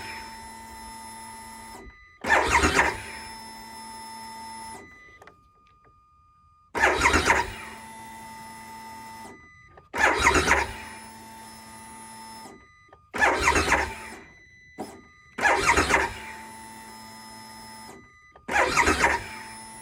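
A 2022 Harley-Davidson Pan America being cranked over and over without starting: about six attempts a few seconds apart. Each is a short loud burst of cranking followed by a couple of seconds of steady electric whine that cuts off. It is a cold-weather no-start with the battery reading 12 volts.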